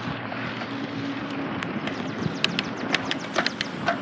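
Riding a bicycle: a steady rush of tyre and wind noise, with scattered sharp clicks and knocks from about halfway through.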